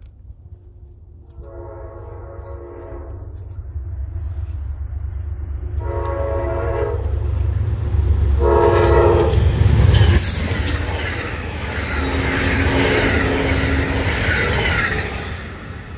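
Amtrak GE P42DC diesel locomotive approaching at speed, sounding its horn in three blasts over a building rumble. It then passes close, with its engine and its passenger cars' wheels rushing loudly over the rails, and the noise eases off near the end.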